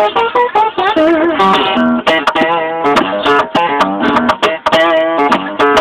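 Acoustic guitar played in a funk blues style: quick runs of single plucked notes and short chord stabs with sharp attacks.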